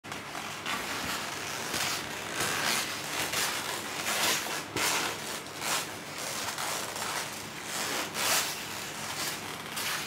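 Irregular scraping and rubbing noises, one or two a second, over a steady hiss.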